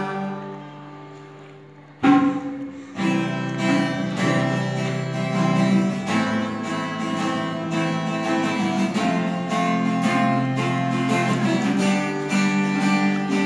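Acoustic guitar strumming in a small live band, with hand drums keeping time. A chord rings and fades over the first two seconds, then a sharp strum restarts a steady strummed rhythm.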